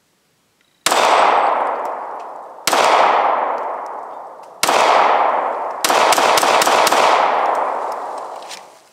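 Custom Glock 43 9mm subcompact pistol firing: four well-spaced shots starting about a second in, then a quicker string of shots, each ringing out in a long echo lasting a second or more. The last shot empties the magazine and the slide locks back.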